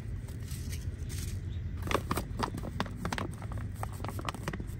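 Plastic resealable pouch of silica gel desiccant packets crinkling and rustling as it is handled, in a run of irregular crackles and clicks, busiest about two seconds in.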